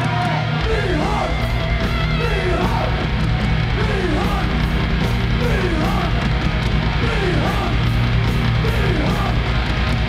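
Heavy metal band playing live with distorted electric guitars, bass and drums, and a short melodic figure that rises and falls, repeating about once a second. The low end thickens about half a second in.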